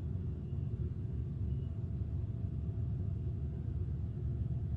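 Steady low rumble of background noise, even throughout, with no distinct events.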